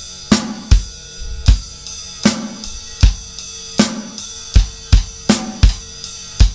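Acoustic drum kit played solo: loud strokes about every three-quarters of a second over ringing cymbals, coming quicker near the end. It is a punk-rock verse groove with the ride cymbal and snare.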